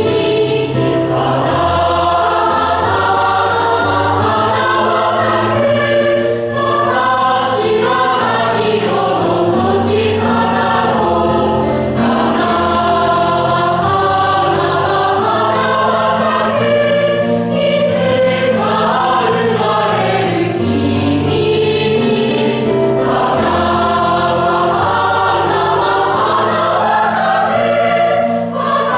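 A choir of students singing together under a conductor, holding notes for a second or more in several voice parts.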